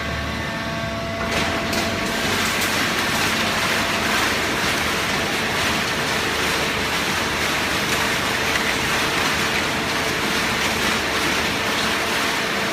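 Hydraulic cardboard baler running: a steady mechanical noise with a faint hum, growing a little louder about a second in.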